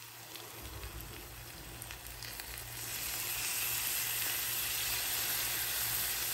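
Masala-coated chicken pieces frying in a cast-iron kadai: a steady sizzle that grows louder about three seconds in, as lemon juice is squeezed into the hot pan.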